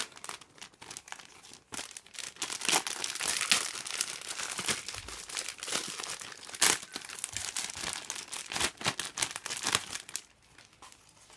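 Thin clear plastic bags and film around a Gunpla model kit's runners crinkling and rustling as hands handle them, with a few sharper snaps among the crackle. It dies down about ten seconds in.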